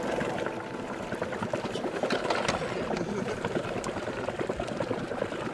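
Boat motor running with water churning and splashing in a steady crackling rush; the motor is run to mimic the sound of a striper feeding frenzy and draw fish.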